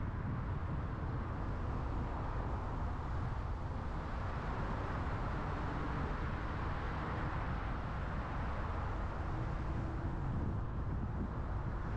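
Car driving along a city road: steady low rumble of tyres and engine with road hiss, the hiss swelling for a few seconds midway.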